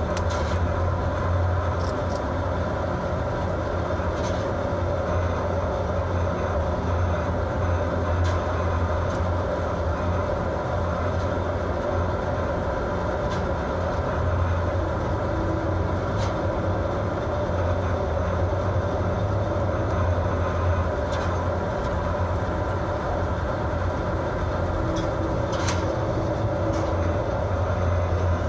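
A fishing vessel's engine and machinery drone steadily: a low hum with a steady higher tone above it, mixed with the rushing noise of wind and rough sea.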